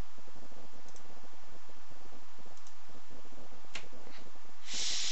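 A few computer mouse clicks, the sharpest about three and a half seconds in, then a short hiss near the end.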